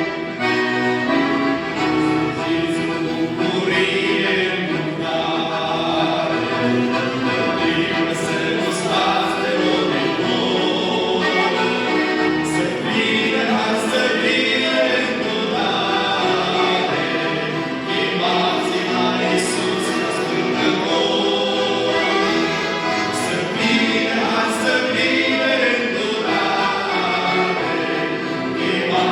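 A group of young people singing a Christian hymn together as a choir, with instruments accompanying.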